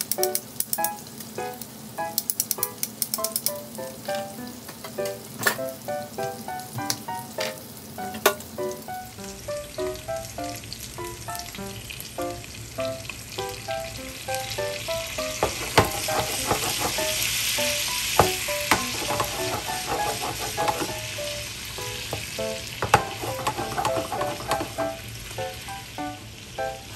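Salmon steaks frying in oil in a nonstick pan, sizzling with sharp crackles. About halfway through, liquid poured into the hot pan makes the sizzle swell into a louder hiss that eases off again. Light background music with short plucked notes plays throughout.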